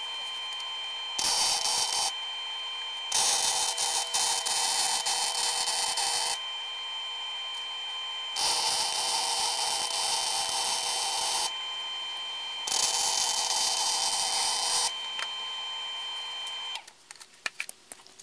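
Wire-feed (MIG) welder crackling and sputtering as it welds angle iron to a car's steel frame, in four runs: a short one about a second in, then three longer ones of two to three seconds each, with a steady hum in the pauses between. Near the end, a few knocks and clicks of the camera being handled.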